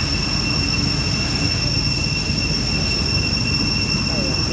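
Steady outdoor ambience: a constant high-pitched whine held on one pitch, over a low rumble of background noise.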